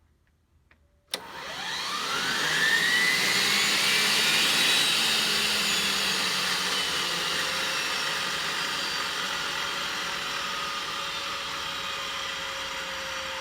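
Rover gas turbine spun on compressed air from a pneumatic starter to clear it out: a sudden rush of air about a second in, a whine rising in pitch over the next two seconds, then a steady loud rush with the whine slowly sinking.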